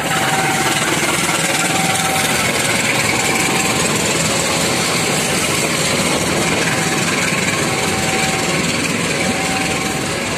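KAI CC201 (GE U18C) diesel-electric locomotive passing close by at low speed, its diesel engine running loudly and steadily. Near the end the passenger coaches behind it roll past on the rails.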